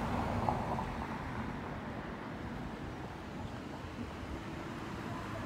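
Steady outdoor rumble of wind on the microphone, with distant road traffic.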